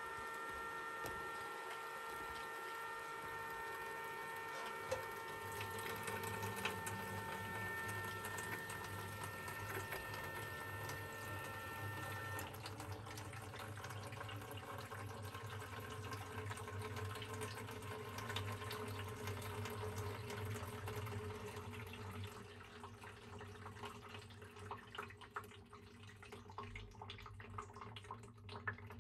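Water running from a tap into a camper van's kitchen sink, a steady flow with a low hum under it. A few steady high tones sound over the first twelve seconds, and the water and hum die down over the last several seconds.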